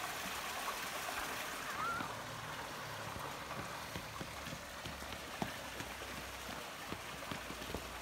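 Steady rush of flowing creek water at the falls, with a brief rising whistle about two seconds in and a few faint clicks and knocks in the second half.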